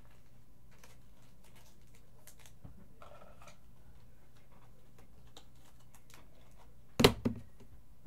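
Faint handling noises of trading cards and their packaging over a low steady room hum: scattered soft clicks and a short rustle. About seven seconds in come two sharp knocks close together, the loudest sounds.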